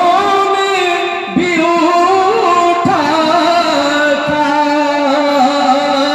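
A man singing a naat, an Urdu devotional poem in praise of the Prophet, into a microphone over a PA. He holds long drawn-out notes with slow ornamented turns and breaks briefly for breath a little over a second in.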